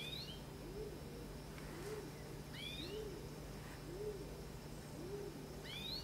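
Greenfinch nestlings giving short, high begging chirps in brief clusters three times, while a low hooting coo repeats about once a second in the background.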